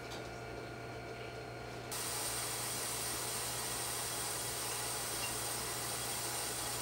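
A steady hiss, like air or gas blowing, that switches on abruptly about two seconds in, over a low steady hum.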